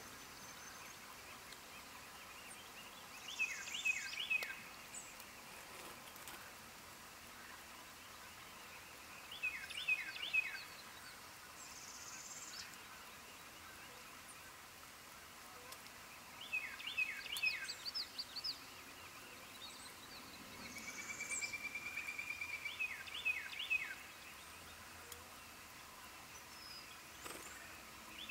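A songbird repeats a short phrase of three or four quick notes about every six seconds. Another bird gives a rapid, even trill shortly before the fourth phrase, and fainter high calls come in between.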